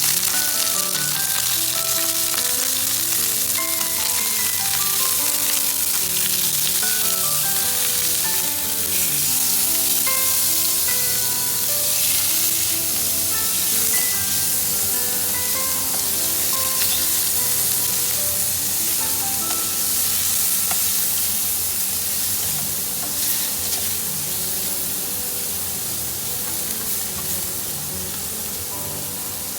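Food frying in hot oil in a pan, a loud steady sizzle that starts abruptly as the food goes in, with stirring; background music plays underneath.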